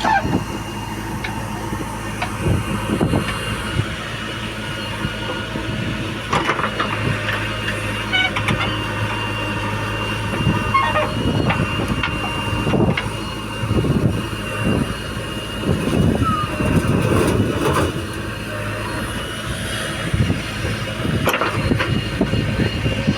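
Diesel engines of heavy machinery running steadily, with a thin steady high whine over them and a series of irregular clunks and knocks in the middle.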